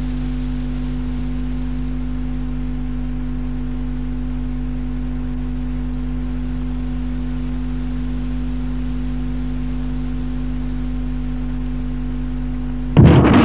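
Steady electrical mains hum with a bed of hiss, unchanging and with nothing else over it. Near the end a loud, noisy sound suddenly cuts in.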